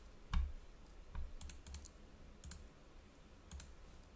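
About six scattered, sharp clicks at a computer desk, each with a dull thump, the loudest less than half a second in and two close together near the end; the clicking of a computer mouse and keyboard.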